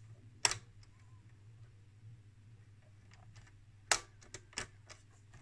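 Clicks from the front-panel controls of a Tektronix 213 DMM oscilloscope being worked by hand, over a faint steady low hum. There is one sharp click about half a second in, then a second sharp click about four seconds in followed by a few lighter ones.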